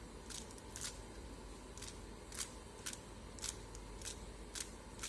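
Rubik's cube faces being turned by hand, a short sharp click with each turn, about two a second, as an F2L pair is solved move by move with the sledgehammer sequence.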